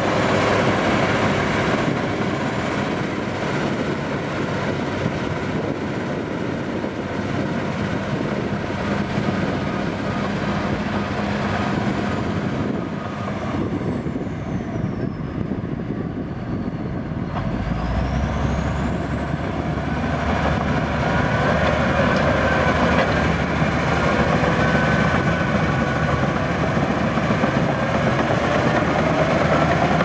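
LiuGong B230 crawler bulldozer's diesel engine working under load as the machine pushes soil, with the steady clatter of its steel tracks. The sound thins out about halfway through as the dozer moves away, then grows louder again as it comes back close.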